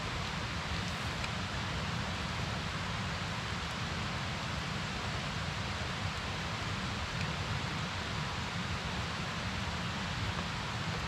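Steady rain falling in a forest: an even hiss without breaks.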